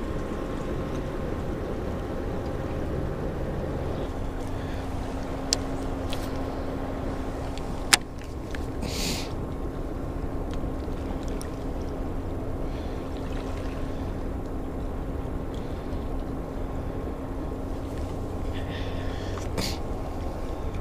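Steady rushing noise of fast river water below a lock and dam. A steady low hum joins about four seconds in. A few sharp clicks sound, the loudest about eight seconds in.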